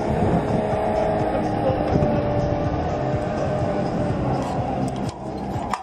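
Crane engine running steadily with a faint held whine, as it works the suspended bungee cage. The sound drops off abruptly about five seconds in.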